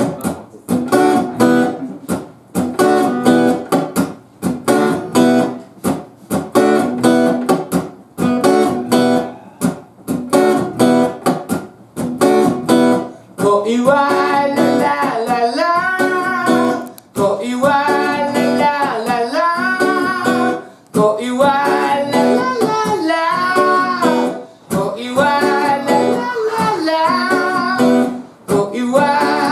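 Acoustic guitar strummed in a steady rhythm. About halfway through, a man's singing voice comes in over it.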